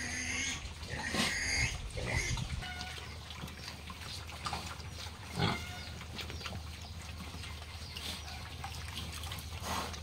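Pen of young pigs grunting and squealing in short calls. The calls come thickest in the first two or three seconds, with one more loud call about five and a half seconds in, then fewer.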